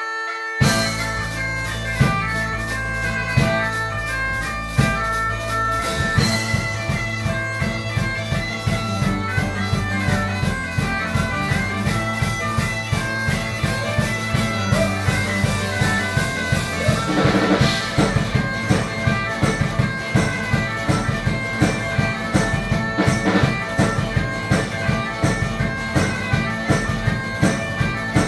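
Live folk-rock band: a droning, bagpipe-like melody over electric guitar and bass. A steady drumbeat comes in about six seconds in and keeps a regular pulse.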